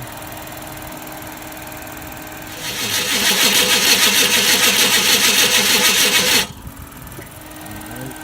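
1995 Chevrolet Caprice's starter cranking the engine over in a fast, even rhythm for about four seconds, then stopping abruptly. The engine turns over but does not fire.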